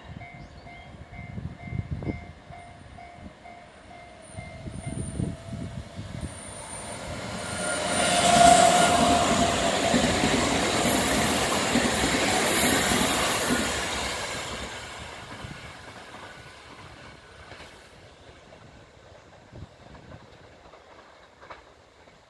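JR Central 383 series electric limited express passing through a station at speed without stopping. Its rush of wheel and running noise builds to its loudest about eight seconds in, holds for several seconds as the cars go by, then fades away as the train recedes. For the first five seconds a pulsing warning tone repeats.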